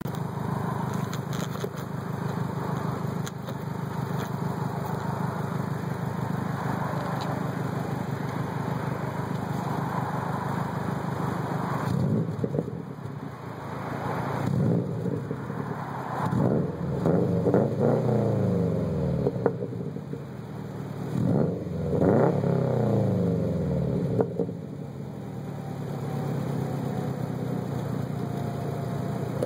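2012 Subaru WRX's turbocharged 2.5-litre flat-four running through a custom 3-inch straight-pipe exhaust. It idles steadily at first, is then blipped in several quick revs, each climbing and falling back, and settles back to idle near the end.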